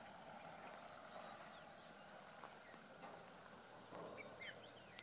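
Near silence: faint rural outdoor ambience, with a few scattered, distant bird chirps over a steady faint high hum.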